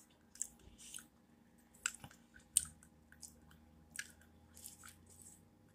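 A person chewing food with the mouth close to the microphone: irregular soft wet smacks and clicks of the lips and mouth.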